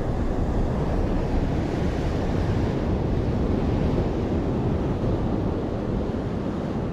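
Steady sea surf breaking against a concrete tetrapod breakwater, with wind buffeting the microphone.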